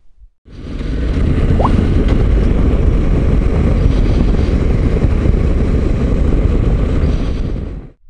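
Honda NC750X motorcycle being ridden on the road: wind rushing over the camera microphone with the engine beneath, fading in about half a second in and out near the end.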